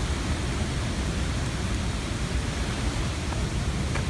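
A waterfall rushing steadily, its water noise heaviest in the low range.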